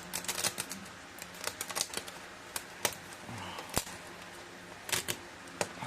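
Hard plastic clicking and rattling of 3D-printed pieces being handled, with irregular sharp clicks over a steady low hum.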